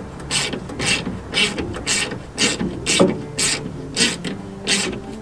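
Hand ratchet clicking as it snugs down the bolts that hold the door glass to its window regulator cradle, in about two short strokes a second.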